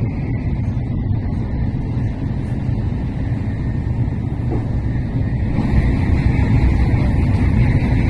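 Steady low rumble of a Shinkansen train running at speed, heard inside the passenger car. It grows somewhat louder and hissier about five and a half seconds in.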